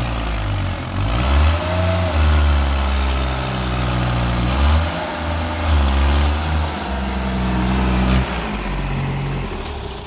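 Sonalika tractor's diesel engine running under load as it drives over ploughed soil, the revs rising and falling several times.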